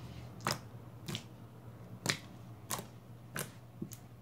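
Homemade glue slime being poked and squeezed by hand, giving about six sharp clicking pops spaced roughly half a second to a second apart.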